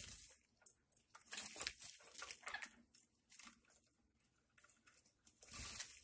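A pineapple green-cheeked conure bathing in a stainless steel water bowl, with fluttering wings and splashing in short spells: one at the start, a longer one from about one to three seconds in, and another near the end.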